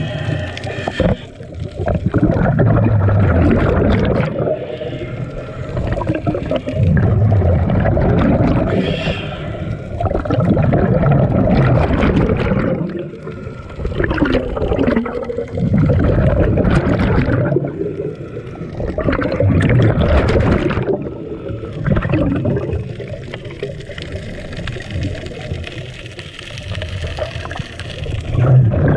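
Scuba diver breathing through a regulator underwater: exhaled bubbles rumbling and gurgling in bursts every three to four seconds, with quieter gaps for the inhalations between.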